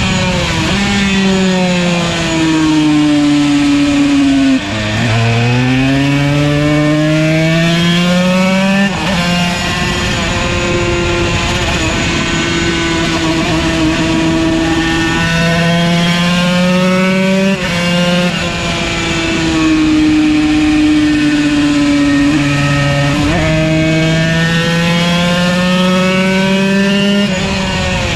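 Yamaha TZ125 single-cylinder two-stroke race engine at full racing speed, its pitch climbing as it revs out and falling as it slows, with sudden gear changes about 5, 9, 17 and 23 seconds in.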